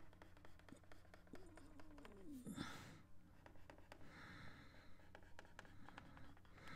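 Near silence: faint taps and scratches of a stylus on a drawing tablet as a cartoon outline is sketched, with a brief falling hum about two and a half seconds in and a soft breath a little later.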